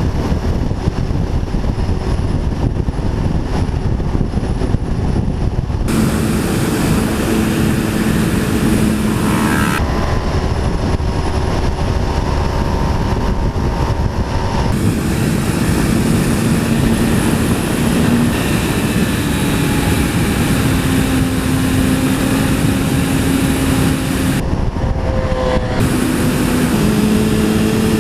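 Sport motorcycle at speed, heard from the bike itself: a heavy rush of wind over a held engine note whose pitch shifts as the revs change, with a brief rising rev about nine seconds in. The balance of wind and engine changes abruptly several times.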